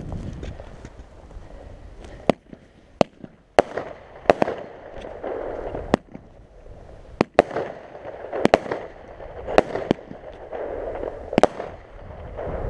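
A small Pyromax Chemical Attack fireworks cake firing its shots one after another: about ten sharp reports at uneven intervals, starting about two seconds in.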